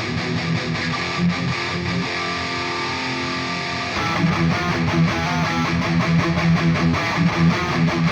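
Distorted electric guitar playing a metal riff: rhythmic palm-muted chugging on a low note, then a chord ringing out for a couple of seconds. About four seconds in, a louder, brighter, busier riff cuts in abruptly.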